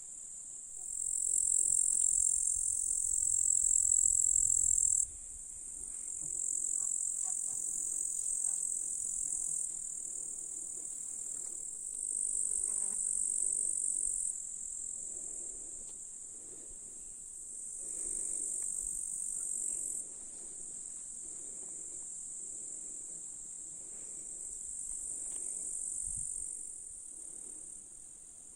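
Meadow grasshoppers stridulating in a dense, continuous high-pitched chorus. Its loudness steps up and down abruptly every few seconds.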